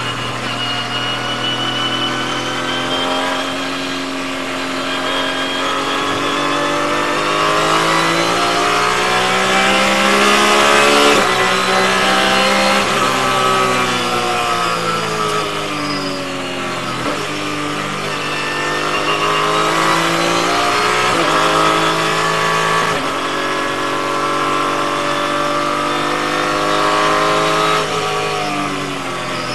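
Porsche 981 GT4 R race car's flat-six engine at full throttle on track. Its pitch climbs as it revs and steps down sharply at each gear change, and it falls away under braking near the end.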